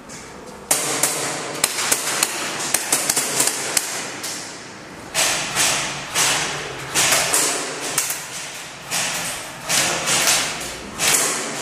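Airsoft gunfire at close range: a rapid, uneven string of sharp cracks for several seconds, then louder clattering bursts about once a second.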